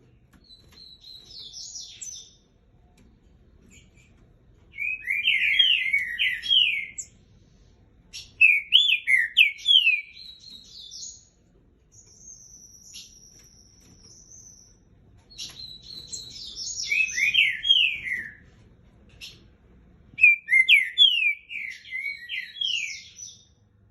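Green-winged saltator (trinca-ferro) singing: about four loud phrases of quick, down-slurred whistled notes, with softer, higher notes between the phrases.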